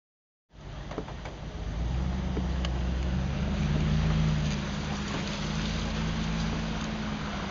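City street traffic sound: a vehicle engine hums steadily under a hiss of passing traffic on wet roads, with a few light clicks. It begins abruptly about half a second in.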